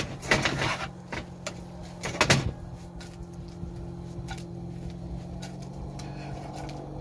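A metal skillet scraping and clattering on the grate of a portable gas stove as it is shifted, in two loud bursts in the first two and a half seconds, then a few light knocks over a steady low hum.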